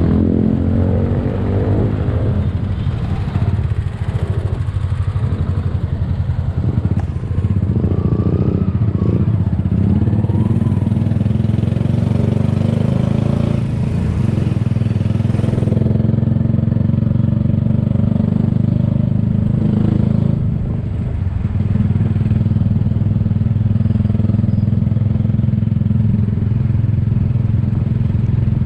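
Motorcycle engine running steadily while riding; it revs up right at the start and eases off briefly about twenty seconds in.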